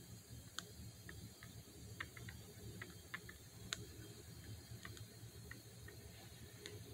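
Faint, irregular small clicks, about a dozen scattered through, over a low steady background hum.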